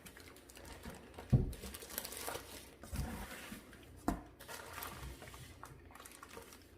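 Cardboard box and packing being handled, rustling, with a few dull knocks as parts are set down. The loudest knock comes about a second and a half in.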